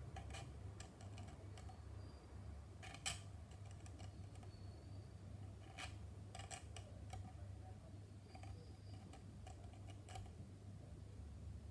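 Scattered faint clicks and short scrapes of small hobby tools working a plastic model car body shell, over a steady low hum.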